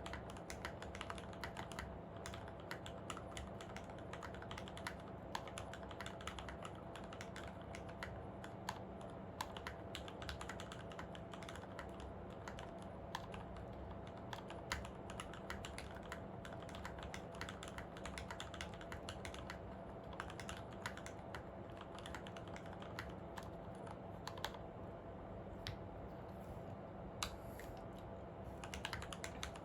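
Typing on a Monstargears Ninja87 XO V2 tenkeyless mechanical keyboard with a brass plate, lubed and filmed Retooled Black linear switches and ePBT keycaps: a steady, dense stream of keystrokes over a faint steady hum.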